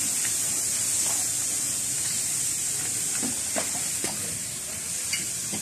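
Steady high hiss with a few faint knocks scattered through it.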